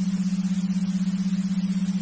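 Synthesized sleep-noise track: a steady low hum with a fast, even flutter, over a faint hiss.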